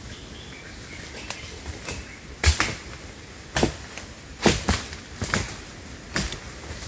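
Sharp chopping strikes of a blade biting into wood up in a tree, about six of them at an irregular pace of roughly one a second, starting a couple of seconds in.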